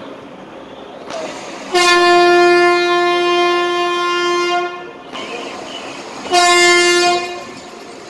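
Train horn sounding twice: a long blast of about three seconds, then a short blast of about a second, over a steady low background noise.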